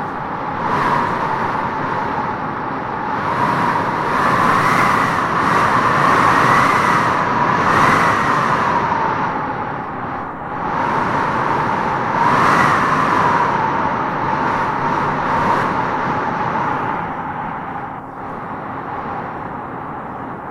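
Wind howling in gusts through trees: a rushing noise with a whistling tone that rises and falls, swelling most about four to eight seconds in and again around twelve seconds in.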